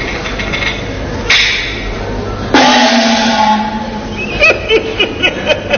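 Chinese opera gong-and-drum percussion: a crash a little over a second in, then a louder ringing stroke that sinks slightly in pitch about two and a half seconds in, then a quick run of sharp strokes, about five a second, near the end.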